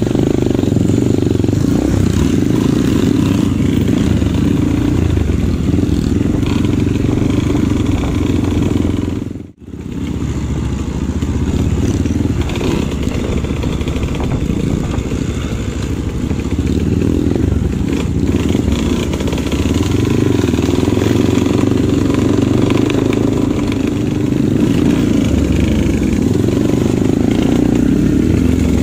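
Dirt bike engines running as the bikes ride along a grassy trail. The sound drops out for a moment about nine and a half seconds in.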